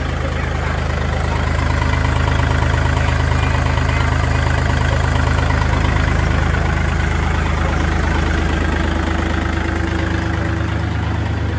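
Diesel engine of a Kubota L4018 tractor idling steadily and evenly.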